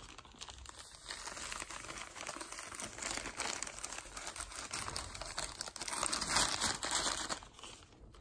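Thin plastic bag crinkling as it is handled and emptied of Tinopal (optical brightener) powder over a bowl of detergent powder; louder in the second half and dying away near the end.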